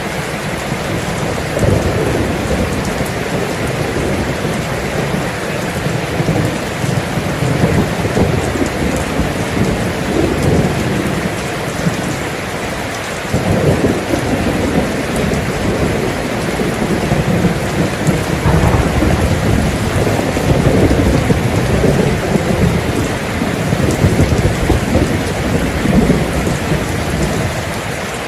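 Steady rain falling, with low rolling thunder rumbling under it that swells about halfway through and again in the latter part.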